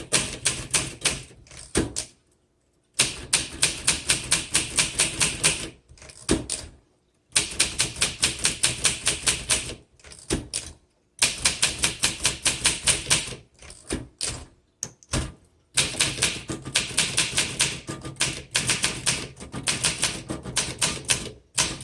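1963 Olympia SM7 manual typewriter being typed on: rapid runs of crisp keystrokes, several a second, broken by short pauses.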